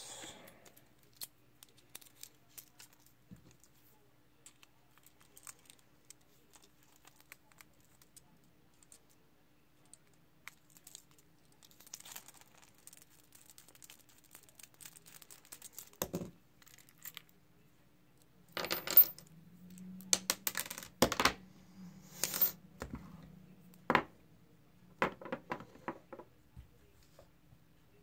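Metal clicks and clinks of an American Lock 1100 padlock being taken apart: its Phillips retaining screw backed out and the brass cylinder removed. Light scattered ticks at first, then a knock and a run of louder sharp clinks and knocks in the second half.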